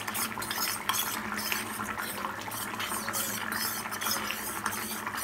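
Steel spoon stirring a thin flour-and-water slurry (atta ghol) in a stainless steel bowl, with quick, irregular clinks and scrapes of metal on metal.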